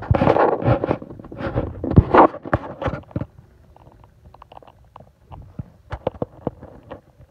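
Handling noise from the phone that is recording: rubbing, scraping and knocks as it is picked up and moved for about three seconds, then scattered light clicks and taps.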